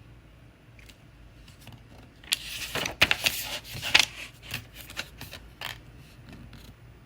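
Book handling as a page is turned: a cluster of paper rustles and sharp clicks starting about two seconds in and lasting about three seconds, loudest in the middle, then a few faint clicks.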